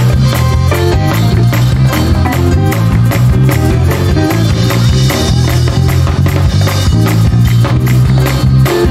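Live gospel church band (keyboards, electric guitar and drum kit) playing up-tempo music with a strong bass line and a quick, steady beat.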